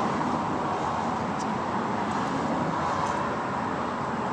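Steady background noise with no clear machine tone, and a few faint light clicks.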